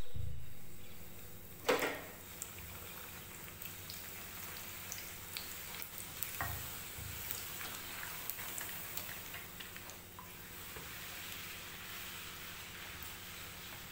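Puri frying in hot oil in an iron kadhai: a steady sizzle and crackle as the dough goes in and is pressed under a slotted spoon until it puffs. Two sharp clicks, about two seconds in and again about six and a half seconds in.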